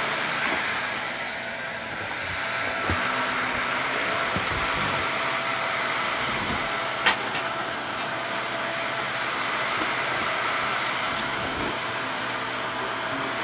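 Upright bagless vacuum cleaner running steadily on carpet: a rush of air with a steady motor whine over it. A single sharp click comes about seven seconds in.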